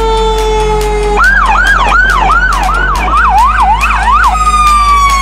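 Emergency vehicle sirens: a slowly falling siren tone, then about a second in a fast yelp that quickens around three seconds in, then a long falling tone again. Electronic music with a steady beat plays underneath.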